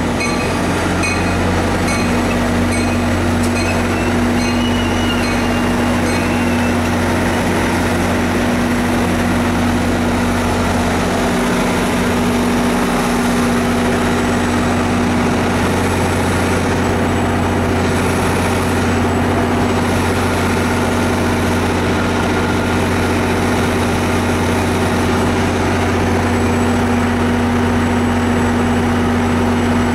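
Diesel locomotive idling close by: a loud, steady, low engine hum that stays unchanged.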